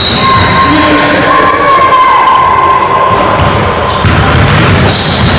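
Pickup basketball game on a hardwood gym floor: the ball bouncing, players' feet thudding, and short sneaker squeaks, all loud and echoing in the hall.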